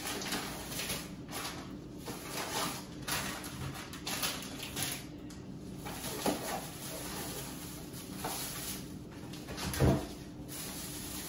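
Thin plastic grocery bag rustling and crinkling in short bursts as items are pulled out of it and set down on a kitchen counter, with a knock partway through and a louder thump near the end.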